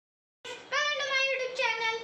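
A high-pitched voice starting about half a second in, with two long, drawn-out syllables in a sing-song manner.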